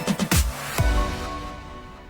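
Background music ending: a few last drum hits, a final hit near the middle, then the sound fades away.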